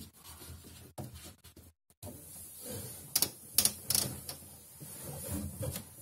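Damp cloth rubbing over the plastic liner inside a refrigerator, with a few sharp knocks and clicks against the plastic about halfway through.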